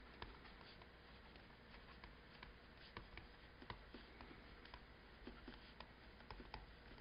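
Faint, irregular taps and ticks of a stylus writing by hand on a tablet screen.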